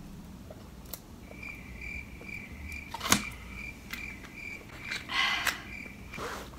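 Plastic drink bottle being handled and its cap twisted: a sharp click about three seconds in and a short crinkle near the end. A faint high chirp repeats about four times a second through most of it.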